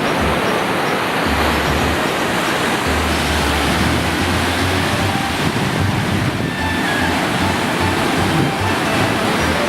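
Sea surf washing in a continuous even roar, with wind buffeting the microphone in low rumbles.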